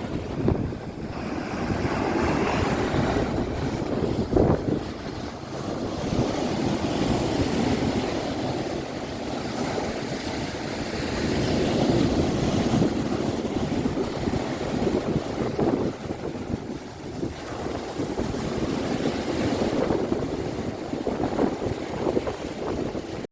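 Surf washing on a beach, with wind buffeting the microphone; the noise swells and eases over the seconds, with a few brief knocks.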